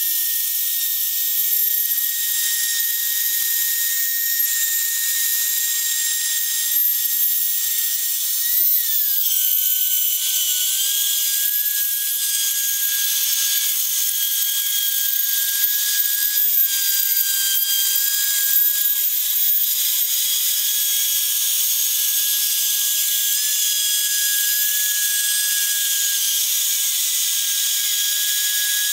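Trim router spindle on a homemade CNC router, whining steadily as its bit cuts a profile into plywood, with a dense hiss of cutting and chip noise. The whine dips slightly in pitch about a third of the way in and holds there.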